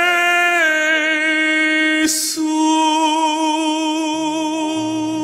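A male singer's voice holding a long final note with vibrato, breaking briefly for a quick breath about two seconds in before sustaining again, over soft musical accompaniment; low accompaniment notes come in near the end.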